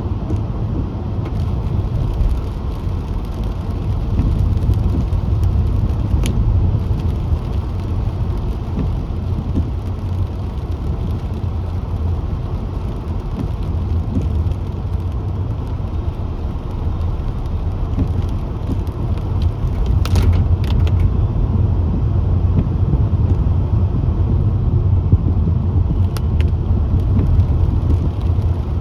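A car driving on the road: steady low rumble of engine and tyre noise, with a few brief clicks, several close together about twenty seconds in.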